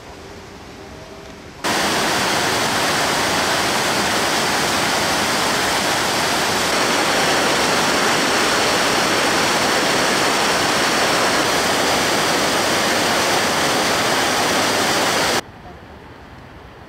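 Small rocky creek cascading over boulders: a loud, steady rush of water that starts suddenly about two seconds in and cuts off shortly before the end.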